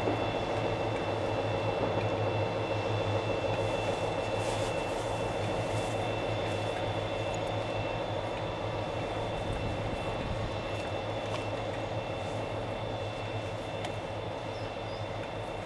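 Class 57 diesel locomotives' EMD two-stroke V12 engines running steadily as the train draws slowly away, the sound fading gradually.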